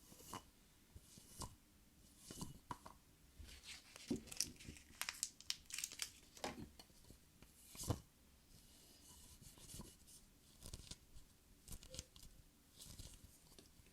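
Close-up tearing and crinkling of some thin material, in irregular scratchy strokes that come thickest in the middle of the stretch.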